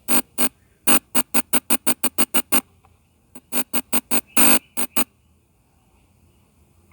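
Rapid runs of short electronic keyboard-like notes played over speakers: about a dozen quick notes in the first two and a half seconds, then eight more after a short pause, one of them held a little longer.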